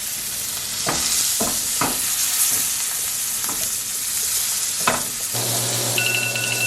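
Elk steak sizzling as it sears in butter in a hot cast iron skillet, with a few light clicks. About five seconds in a steady low hum begins, followed by short electronic beeping near the end.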